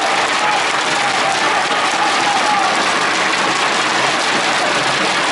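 Tennis spectators applauding steadily after a point, with a few voices calling out from the stands.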